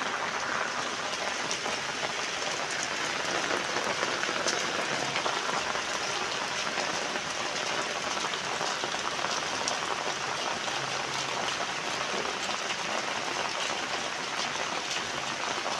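Steady rain falling onto puddled paving and standing floodwater, an even hiss with scattered drop ticks.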